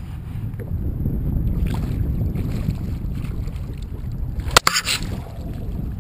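Wind buffeting a kayak-mounted camera's microphone, with a sudden loud splash about four and a half seconds in as a hooked speckled trout thrashes at the surface beside the kayak.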